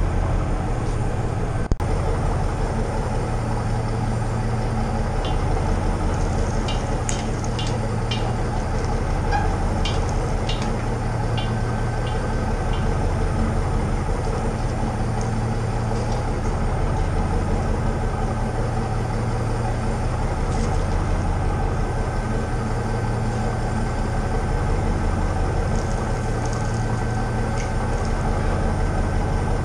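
Heavy diesel engine running steadily, with a few light clicks and taps between about five and thirteen seconds in.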